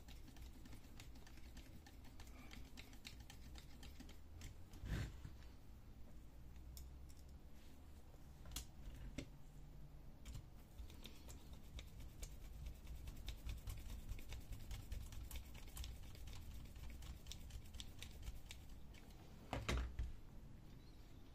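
Hand screwdriver driving the screws of the metal bracket on an HP Color LaserJet CP3525 fuser unit: scattered light clicks and ticks, with a louder knock about five seconds in and another near the end.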